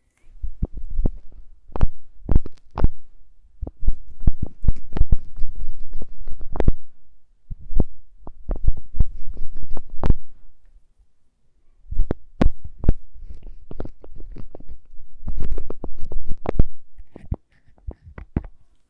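Close-miked lip balm tube being handled, tapped and clicked: rapid sharp clicks and taps in bursts with heavy low thumps, broken by short pauses about seven and eleven seconds in.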